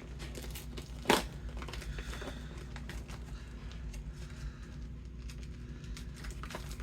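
Plastic snack bag of Goldfish crackers crinkling as it is opened by hand, with one sharp crack about a second in, then steady rustling of the bag.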